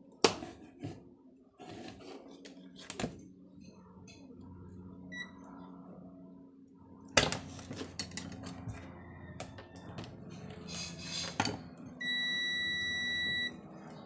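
Sharp clicks and knocks of multimeter test probes being handled, then near the end a steady electronic beep of about a second and a half from a ZOTEK ZT102 digital multimeter's continuity buzzer, the beep that signals a closed circuit between the probes.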